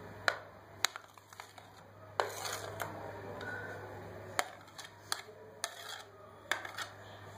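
A spoon scraping cut potato sticks off a plate into a steel bowl: a string of sharp, scattered clinks of spoon, plate and bowl as the potatoes drop in.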